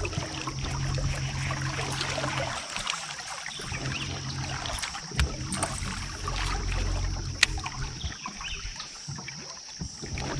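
Low electric hum of a bass boat's trolling motor, switching on and off in stretches, with a few sharp clicks from a baitcasting reel being cast and wound in.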